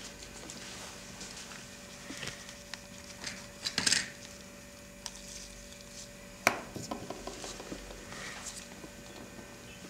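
Small handling noises of cosmetics worked over a glossy magazine page: a lipstick rubbed across the paper in a short scraping burst about four seconds in, and a sharp click about six and a half seconds in, followed by a few lighter ticks, over a faint steady hum.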